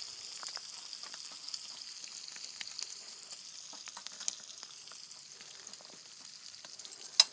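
Bacon sizzling and crackling in a pan: a steady frying hiss with many small pops. A single sharp click sounds just before the end.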